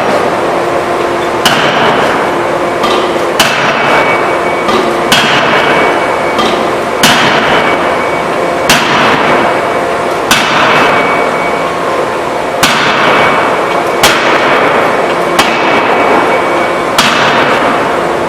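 A 2-ton hydraulic open die forging hammer striking repeatedly, about ten sharp blows roughly one every one and a half to two seconds. Each blow is followed by a rushing noise that fades, over a steady hum.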